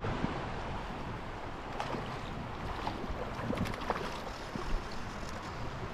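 Creek water rushing over rocks, a steady even rush with small splashes.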